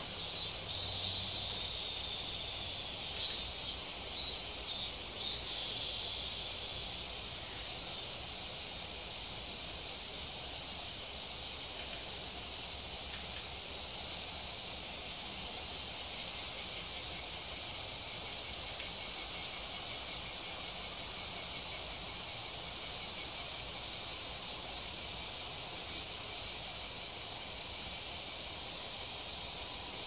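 Steady high-pitched chorus of insects, with a few short, sharper bursts in the first five seconds.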